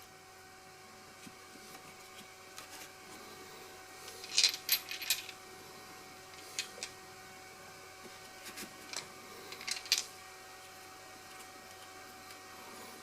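1/2-inch drive metal sockets clicking and clinking as they are set one by one into a foam socket organizer: short, light metallic clicks in small clusters about four seconds in, once more near seven seconds, and again around nine to ten seconds, over a faint steady hum.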